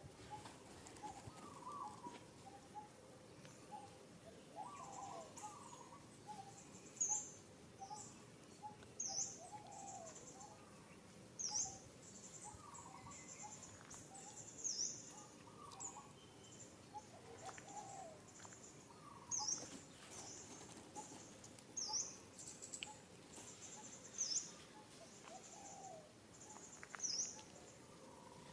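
Outdoor birdsong, fairly quiet: a sharp, high call repeated about every two to three seconds from about seven seconds in, over softer short chirping calls lower down and a steady high insect hiss.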